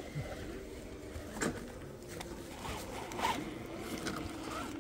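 Electric motor and gearbox of an RC rock crawler whining, the pitch rising and falling with the throttle, with a couple of short knocks or scrapes as it climbs.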